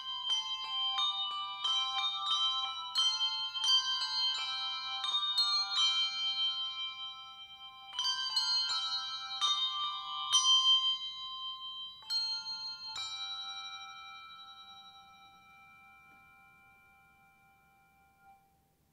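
Handbell choir ringing a piece, with many bell notes struck in quick succession and left to ring. A final chord is struck about 13 seconds in and slowly rings away to nothing.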